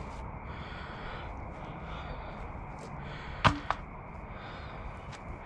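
Two sharp knocks in quick succession about three and a half seconds in, the second fainter, over a steady low background hiss.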